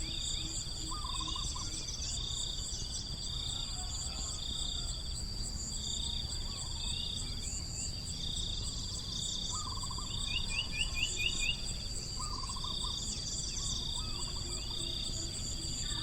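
Tropical forest ambience: insects trilling steadily at a high pitch, with a second insect call pulsing on and off about once a second. Short bird chirps break in now and then, most clearly about ten seconds in.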